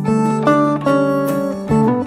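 Background music: an acoustic guitar plucking a melody, with a new note or chord about every half second.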